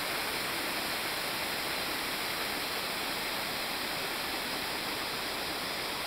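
Small waterfall cascading in thin streams over stepped rock ledges, a steady, even rush of falling water.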